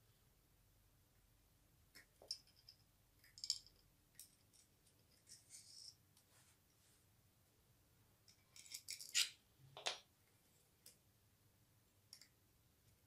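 Sparse small clicks and clinks of hands handling the X-axis gantry parts of an Ender 3 Pro 3D printer while its drive belt is being fitted, with a louder run of clicks about nine seconds in; otherwise near silence.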